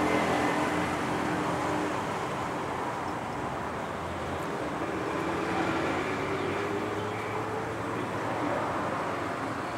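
Steady background road-traffic noise, with a vehicle engine faintly rising in pitch about five seconds in.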